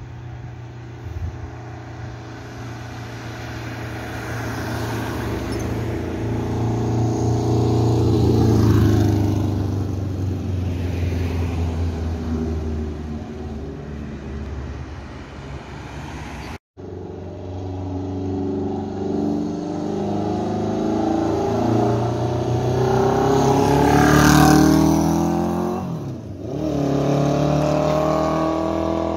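Honda CB750 bobber's air-cooled inline-four engine riding past twice. First it grows louder to a peak about nine seconds in and fades. After a sudden cut it accelerates with rising pitch and passes close near the end with a sharp drop in pitch, then carries on running.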